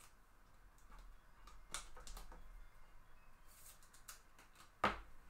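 Faint handling sounds as a baseball card is sleeved into a plastic top loader: a few light plastic clicks, then one sharper click or tap near the end.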